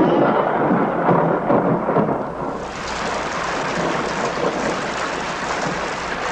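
Thunder rumbling with rain falling; about two and a half seconds in, the hiss of the rain grows louder and brighter.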